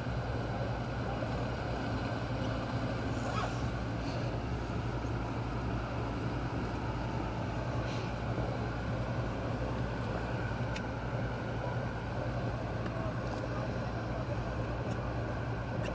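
Motor yacht's engines running at a steady cruising speed: a low, even drone under a rush of wind and water.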